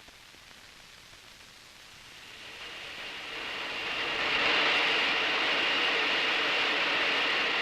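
A rushing, jet-like roar with a steady high whine, swelling up over a couple of seconds and then holding steady.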